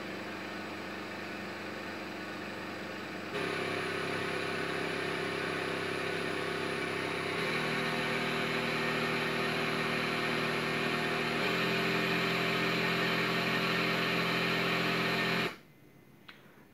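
Newport HT70 transport ventilator's internal pump running its circuit-check test: a steady motor hum that steps to a new pitch and gets louder three times, about every four seconds. It cuts off about a second before the end, when the test is complete.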